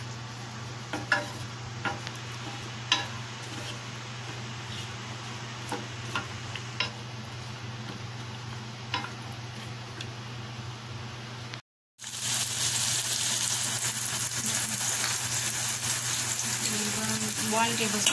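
Chopped onions frying in oil in a stainless steel pan, stirred with a wooden spatula that knocks against the pan a few times in the first half. After a brief cut about twelve seconds in, the sizzle is louder and steadier.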